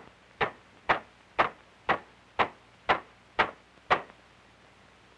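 Ball-peen hammer's peen end tapping soft sheet metal to shape it: about nine short, evenly spaced blows, two a second, each with a brief ring. They stop about four seconds in.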